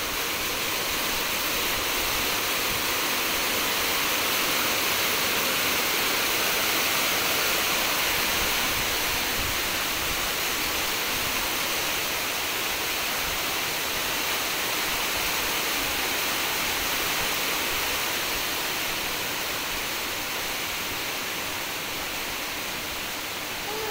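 A steady, even rushing hiss with no distinct events, swelling slightly a few seconds in.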